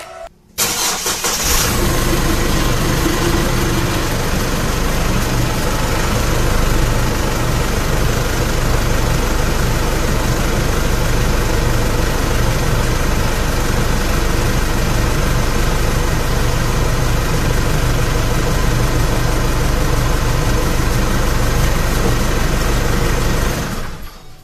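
Chevrolet Trailblazer's 2.8 Duramax four-cylinder turbodiesel starting about half a second in, then idling steadily. The engine is run so the transmission pump pushes old ATF out through the disconnected cooler line during the flush. It fades out near the end.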